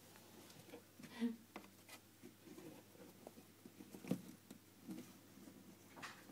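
Kittens' paws scrabbling and pattering on a cardboard box as they play, with a string of light scratches and a couple of louder knocks about a second in and around the middle.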